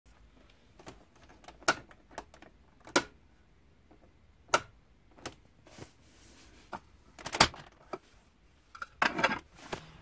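Irregular sharp clicks and small knocks, about a dozen in all, the loudest about seven seconds in and a quick run of them near the end.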